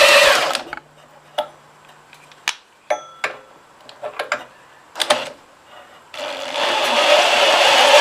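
A power drill spinning a Honda GX200 engine over to check for spark: its motor whine stops about half a second in, a few clicks and knocks follow, and the drill spins back up from about six seconds in.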